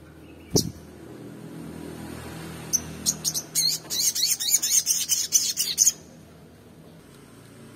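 Olive-backed sunbird calling and singing. A sharp high note comes about half a second in, then a lone chirp, then a rapid high-pitched twittering run of about three seconds that stops abruptly.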